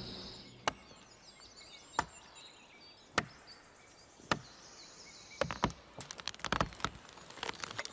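An axe chopping into a pine trunk: four sharp strokes about a second apart, then a quicker flurry of lighter strokes and splintering wood near the end.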